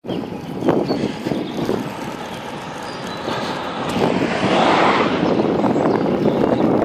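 Wind rushing over the microphone and road noise from a bicycle riding along, with a few knocks and rattles in the first two seconds. The rush gets louder about four seconds in.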